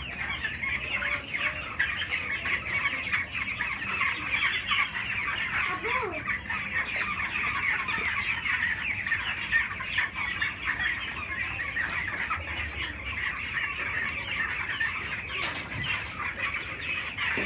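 A shed full of young broiler chickens peeping and cheeping together in a dense, continuous chorus.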